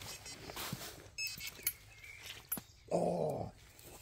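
A single low animal call, like a dog's bark, lasting about half a second and falling slightly in pitch, about three seconds in. Faint high chirps come before it, in the first second or so.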